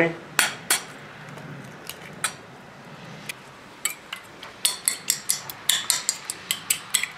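A few separate sharp taps as eggs are cracked on the rim of a bowl, then, from about four seconds in, a fork beating the eggs, clinking quickly against the bowl about five times a second.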